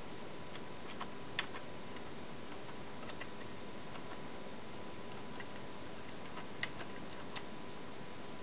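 Faint steady hiss with a thin steady tone from a Philips FA 860/00R amplifier sitting between inputs with no music playing, broken by scattered small irregular clicks.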